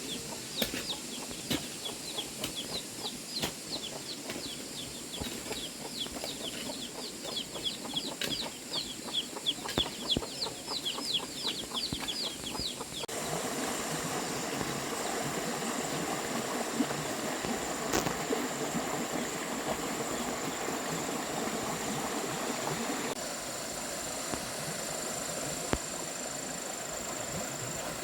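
Chickens, with many short, high, falling peeps in quick succession for about the first half. Then the sound changes abruptly to a steady hiss with a thin, high, steady whine over it.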